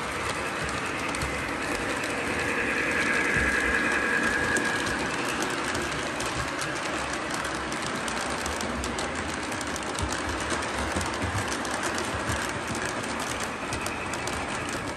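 Lionel O-gauge model freight train running on the layout's track, its car wheels clicking rapidly and steadily over the rail joints. It is a little louder in the first few seconds.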